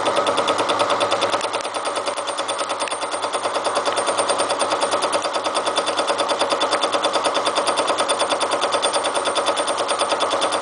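Milling machine fly cutter with an indexable insert tip taking a finishing cut across railroad-rail steel under power feed. Each pass of the tip through the metal gives a rapid, even rattle of interrupted cuts.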